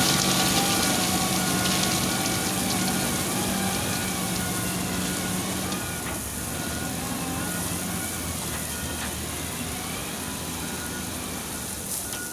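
Wheel loader's diesel engine running steadily with a wavering whine above it, slowly fading.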